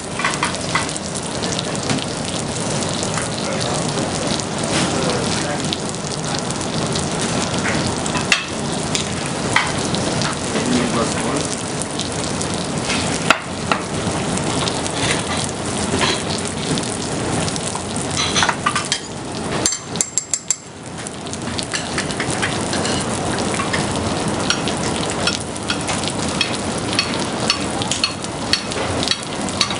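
Food sizzling in a hot frying pan, a steady crackling hiss dotted with short clicks and knocks of kitchen utensils. The sizzle dips briefly about twenty seconds in, then carries on.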